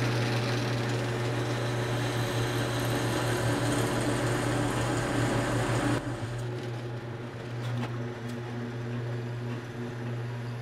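Drill press running, its bit cutting into a purpleheart wood knife handle with a steady motor hum. About six seconds in, the cutting noise stops suddenly while the motor hum carries on, with a few light clicks as the vise is handled.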